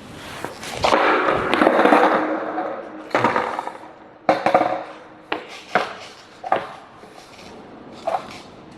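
Skateboard wheels rolling loudly over wet pavement, then a run of sharp clacks and knocks as the board hits the ground and bounces, six or so over about five seconds, growing fainter: a missed trick attempt with the board clattering away.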